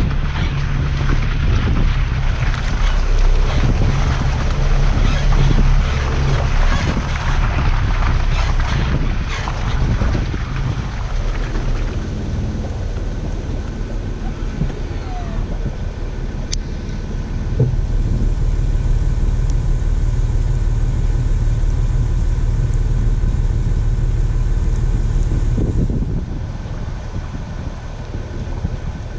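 Off-road 4x4 driving slowly along a muddy lane, the engine's low running under rough noise from the tyres and wind on an outside-mounted microphone. About twelve seconds in the vehicle comes to a halt and the engine idles steadily, a little quieter near the end.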